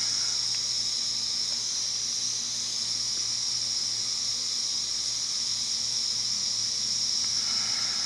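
Lawn sprinklers spraying water: a steady, loud, high hiss, with a faint low hum underneath.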